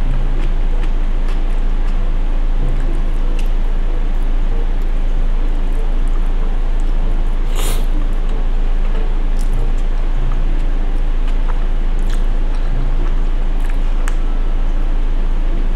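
Close-up mouth sounds of someone eating noodles, with scattered sharp clicks, the strongest about halfway through, over a steady loud low hum.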